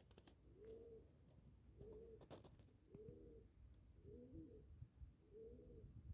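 Faint cooing of a dove: five short, arched coos, evenly spaced, with a couple of soft clicks about two seconds in.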